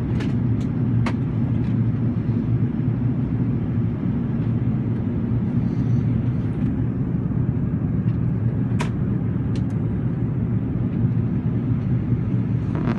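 Steady low rumble of engine and airflow noise inside the cabin of an Airbus A380 in flight. A few short clicks come near the start and once about nine seconds in.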